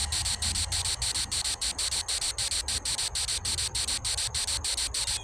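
Chorus of insects chirping, high-pitched and steadily pulsing at about six pulses a second.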